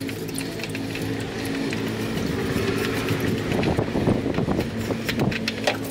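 A steady mechanical hum with several pitches, with scattered clicks in the second half.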